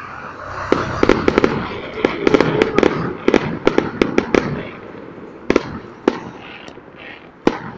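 Aerial fireworks going off: a rapid run of sharp bangs and crackling from shell bursts, densest in the first half, then a few scattered single bangs.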